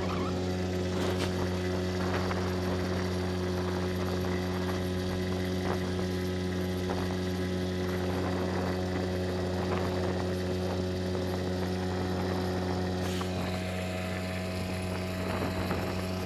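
Mercury 5 hp outboard motor running at speed at one steady pitch, driving an inflatable boat across the river.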